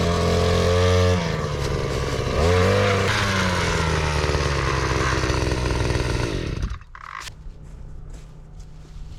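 A small engine running, its pitch dropping about a second in and then revving back up, before it shuts off abruptly about two-thirds of the way through. Faint wind and a few light knocks follow.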